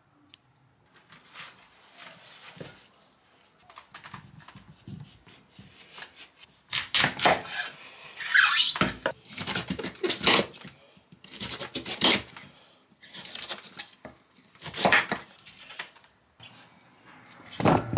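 Kitchen food-prep handling noises: irregular clicks, scrapes and rustles, faint at first and louder from about seven seconds in, with a short squeak around the middle.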